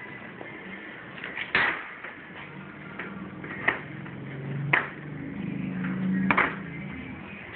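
Spring clamps being shifted and set on the aluminium angle of a screen-printing frame: four sharp metallic clacks spread across the stretch, over a low hum in the middle part.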